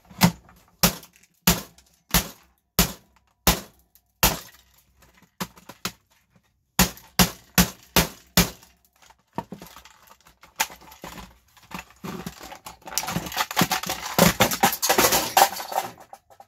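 Steel hammer striking the hard plastic housing of a Nespresso pod coffee maker: a series of sharp blows, about one or two a second. Near the end comes a few seconds of dense cracking and snapping as the plastic housing breaks apart.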